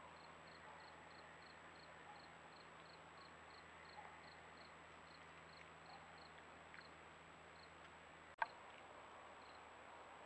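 Near silence with a faint, high-pitched insect chirp repeating about three times a second. About eight seconds in there is a single sharp click where one trail-camera recording gives way to the next.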